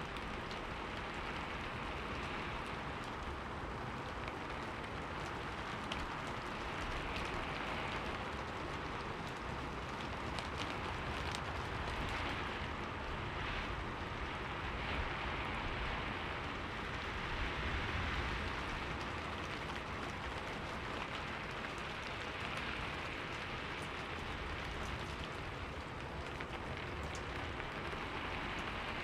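Steady rain falling, an even hiss with a few sharper drops ticking through it.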